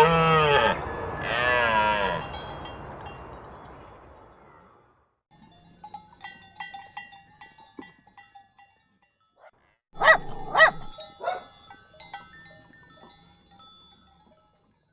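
Livestock bleating twice with a wavering pitch, the calls echoing away. Then come scattered clanks of bells like cowbells, and two more bleats about ten seconds in.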